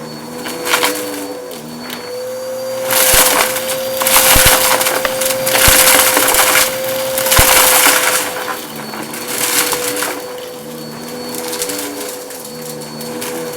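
Bissell vacuum cleaner running with a steady motor whine while sucking crunchy debris out of a shag rug. Loud crackling rattles of debris going up the nozzle come in repeated surges, heaviest in the middle.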